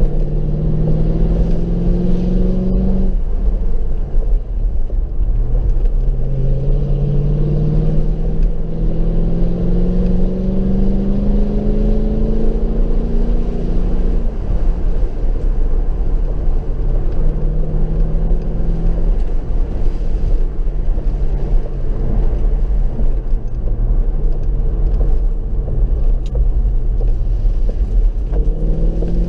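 Mercedes SLK 55 AMG's V8 engine under acceleration, heard from inside the car. Its note rises in pitch through two long pulls and drops sharply at each gear change, then settles to a lower, steadier drone before climbing again near the end. A constant low road rumble runs underneath.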